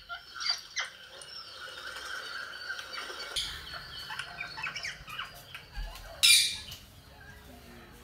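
Rose-ringed parakeet calling in short chirps and squeaks with a longer held note, then one loud harsh burst about six seconds in.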